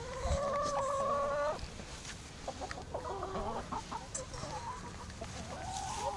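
Backyard laying hens calling: one long, even call of about a second and a half, then several shorter clucks that shift in pitch.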